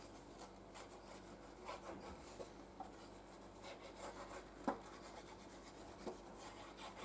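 Faint rubbing and scratching of a Tombow liquid glue bottle's applicator tip drawn across cardstock, with a few small taps from the card being handled; the sharpest click comes about two-thirds of the way through.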